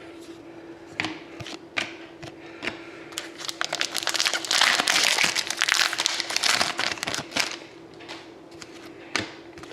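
Foil wrapper of a hockey card pack being torn open and crinkled, giving a dense crackle in the middle of the stretch, with scattered clicks and rustles before and after.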